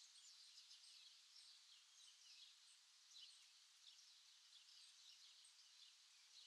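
Faint chirping of small birds, many short scattered calls over a soft steady hiss of forest ambience.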